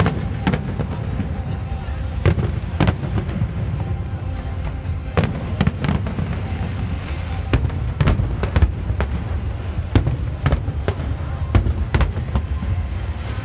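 Fireworks display: aerial shells going off in a rapid, irregular string of sharp bangs, roughly two a second, over a steady low rumble.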